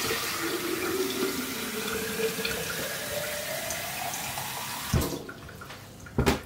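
Water running from a tap into a vase, its pitch rising as the vase fills, then shutting off about five seconds in. A sharp knock follows near the end.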